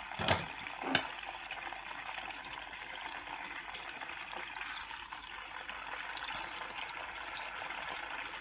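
Chicken fillets frying in shallow oil over a low flame, a steady sizzle. Two sharp knocks of a utensil against the pan come in the first second.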